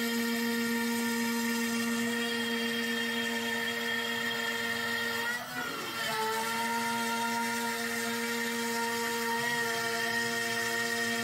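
CNC router spindle running at 12,000 rpm with an end mill cutting MDF: a steady, multi-toned whine. About halfway through the whine dips and wavers briefly as the cutter steps down to the next depth pass, then settles again.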